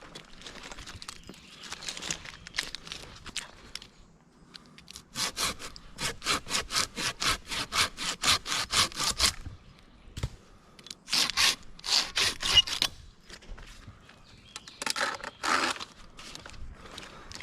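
Hand saw cutting through wood in quick, even back-and-forth strokes, about four or five a second, in three runs with short pauses between.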